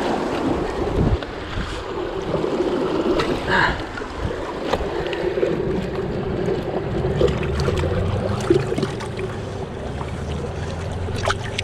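Sea waves washing against rocks, with wind buffeting the microphone and a few sharp knocks.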